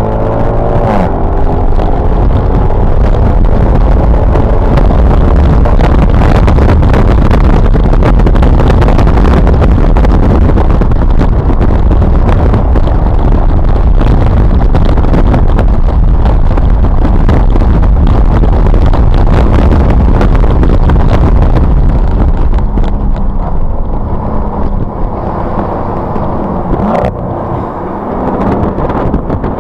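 Mercedes SLK at speed on a race track: a loud, steady rumble of wind and road noise over the engine, whose pitch climbs at the start and again near the end. The rumble eases a little in the last few seconds.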